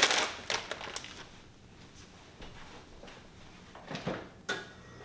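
Plastic food packaging crinkling briefly at the start as groceries are handled, then a quiet stretch with a couple of light knocks and a short rustle near the end.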